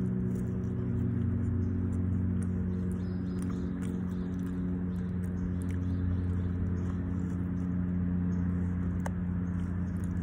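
A steady low mechanical hum of several even tones that holds without change, with faint chewing and a few small clicks.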